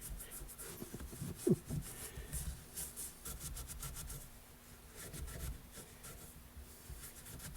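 A rag rubbing a metal mower-deck spindle part, wiping off brake cleaner in runs of quick scrubbing strokes. A short falling squeak comes about one and a half seconds in.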